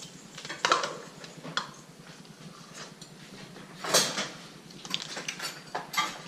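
Spoons clinking and scraping against bowls as jello is eaten: a handful of separate light knocks, the loudest about four seconds in.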